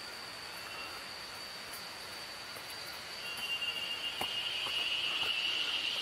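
Insects calling: a steady high-pitched drone, joined about three seconds in by a louder, slightly lower buzzing chorus, with a few faint ticks.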